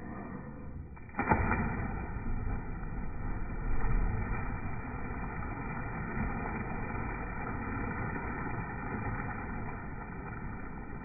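Jump into a swimming pool: one sharp splash about a second in, then steady churning and bubbling water as the jumpers surface. Everything is dull and muffled, with no high end.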